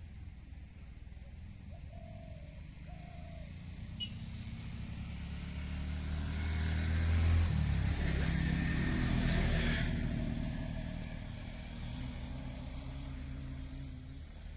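A motor vehicle passes by. Its engine hum grows louder over several seconds and peaks about eight to ten seconds in with a rush of tyre and air noise, then fades away.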